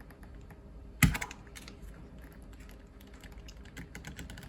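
Small plastic clicks and taps from a cable connector being handled and worked on, with one sharp knock about a second in.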